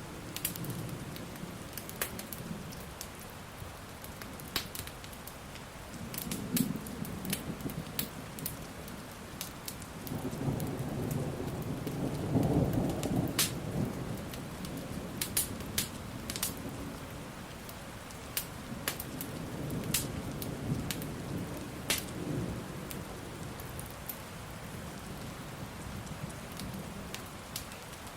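Steady rain with low thunder rumbling, swelling to its loudest about halfway through and then rolling on more softly. Sharp crackles and pops from a wood fire are scattered throughout.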